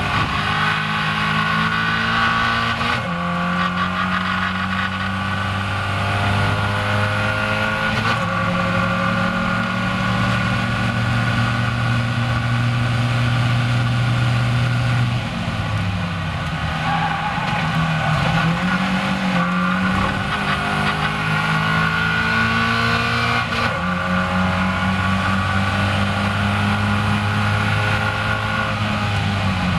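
Caterham Seven race car's engine heard from the cockpit at full throttle, the revs climbing and then dropping sharply at each upshift, a few times. Near the middle it lifts off for braking and shifts down, then pulls up through the gears again, with wind noise over the open car.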